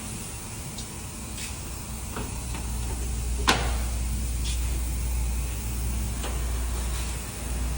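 Auto repair shop ambience under a lifted car: a steady low rumble with a few faint clicks and one sharp knock about three and a half seconds in.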